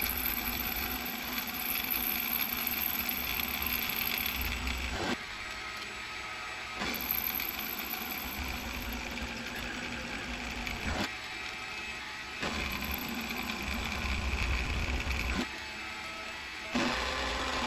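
Proxxon MF 70 micro mill running as its end mill face-mills a 7075 aluminium block square, pass after pass. A high thin whine comes and goes as the cut is made, and the overall sound switches abruptly between louder and quieter stretches several times.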